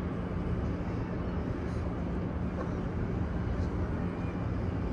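Steady low rumble of ambient noise from a large crowded mosque, with a faint steady hum.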